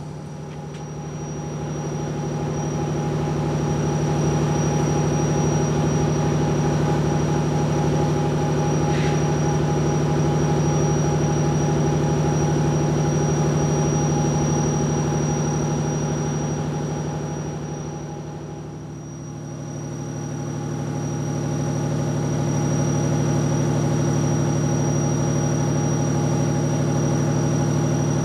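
A stationary passenger train humming steadily, a low drone with a thin high whine over it. The sound dips briefly about two-thirds of the way through, then returns unchanged.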